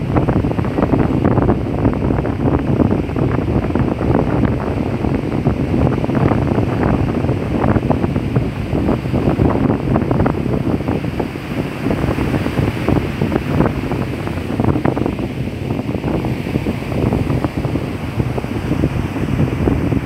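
Surf breaking on a beach, mixed with wind buffeting the microphone: a loud, steady rush with many irregular short pops from the wind.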